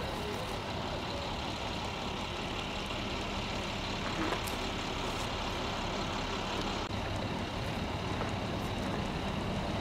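Large vehicle engine running steadily, its low hum changing tone about seven seconds in.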